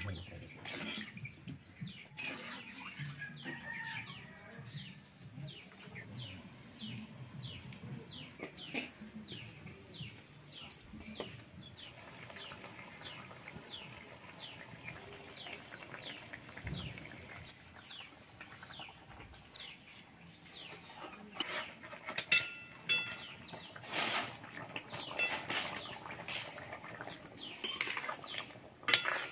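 A small bird chirping over and over in short, high, falling notes, about two a second. In the last several seconds a metal spatula clatters and scrapes loudly against an iron wok of simmering curry.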